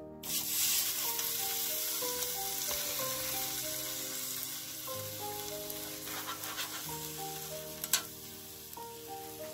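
A thick rump steak sizzles on a preheated air fryer basket: a hiss that starts suddenly and slowly fades. Background music with a simple stepping melody plays throughout.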